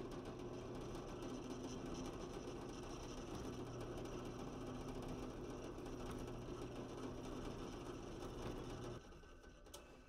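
Drill press running steadily as a brad point bit drills holes through two layers of KYDEX sheet. The motor cuts off about nine seconds in.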